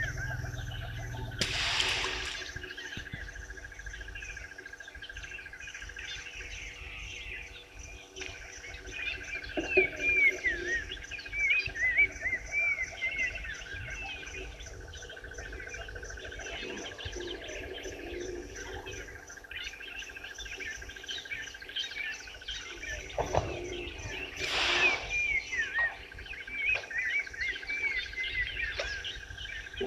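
Outdoor bushveld birdsong: many birds whistling and calling in repeated short phrases over a steady high hum. Two brief, louder rushes of noise come about two seconds in and again after about 24 seconds.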